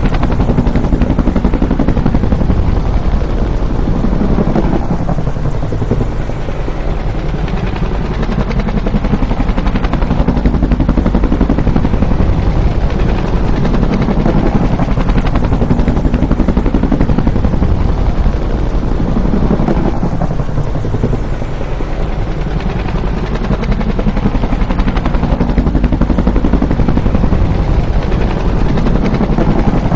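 Bell UH-1 Huey helicopter, its two-blade main rotor thumping rapidly and steadily. The sound eases off about six seconds in and again about twenty-one seconds in, then builds back up.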